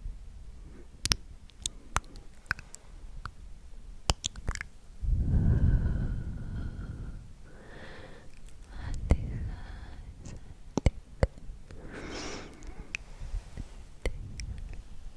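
Close-miked ASMR mouth sounds: scattered sharp wet clicks with soft breathy whispering sounds between them, the loudest a breathy swell about five seconds in.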